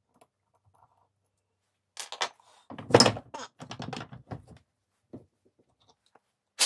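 Clatter of hard objects being handled: a quick run of knocks and clicks lasting two to three seconds, starting about two seconds in, then a single knock and a sharp click near the end.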